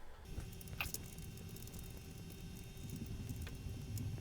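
Steady low hum of a running Macintosh LC 475 computer, setting in abruptly just after the start, with a couple of sharp clicks.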